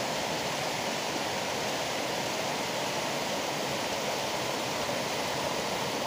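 Small waterfall spilling down sloping rock slabs: a steady, even rush of falling water, the waterfall's hum.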